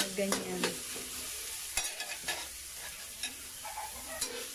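Chopped onion, tomato and garlic sizzling in oil in a wok, with a steady hiss. A spatula stirs and scrapes the pan, making irregular sharp clinks against the metal.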